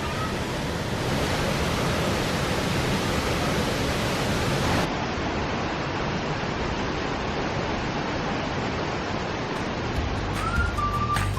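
Waterfall rushing steadily, an even wash of falling water. Near the end, music with a few held, whistle-like notes starts over it.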